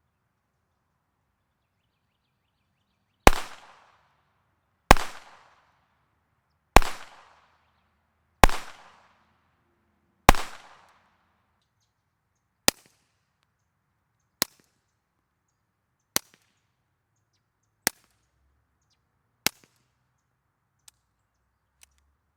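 A string of .22 rimfire gunshots, a little under two seconds apart. Five louder shots each trail off in an echo, then five sharper, quieter cracks follow at the same pace, with two faint ones near the end.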